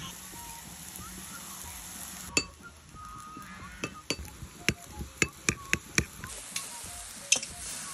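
Metal spoon clinking against a ceramic bowl while stirring a dipping sauce: a quick run of sharp clinks in the middle, about three or four a second, with single clinks before and after.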